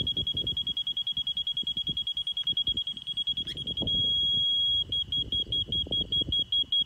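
Laser level receiver on a leveling rod beeping at one high pitch: rapid beeps, meaning the receiver sits above the laser beam. About four seconds in it becomes a solid tone for about a second, meaning it is on the beam, then drops to slower beeps, about three a second, meaning it is now below the beam.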